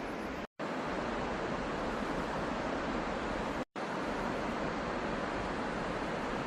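A mountain waterfall making a steady, even rush of falling water. The sound cuts out completely twice for a split second, about half a second in and again nearly four seconds in.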